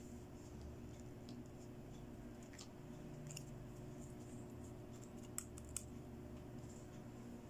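Small pink plastic toy pieces handled by fingers: a scattering of faint clicks and taps, with two sharper clicks close together a little past the middle, over a faint steady hum.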